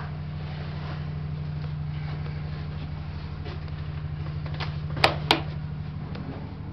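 Steady low rumble and hum inside a passenger train carriage, with a fast, fine pulsing. About five seconds in come two sharp clicks about a third of a second apart, the loudest sounds.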